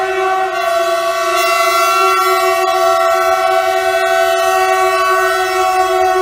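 Horns of several locomotives sounding together, held as one long steady chord, with some of the tones shifting slightly in pitch a second or so in.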